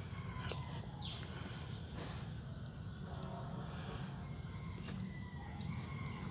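A steady high-pitched insect trill with a low background hum, and a few faint clicks and rustles as a hand sorts through dry, crumbly snail egg clutches in a plastic basket.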